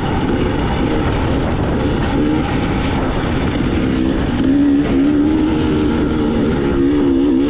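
KTM 300 two-stroke dirt bike engine running under throttle, its pitch wavering up and down, then louder and steadier from a little past halfway.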